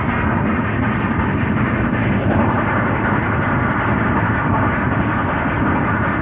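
Steam locomotive hauling a train, a steady dense running noise without a clear beat; its tone shifts slightly a little over two seconds in.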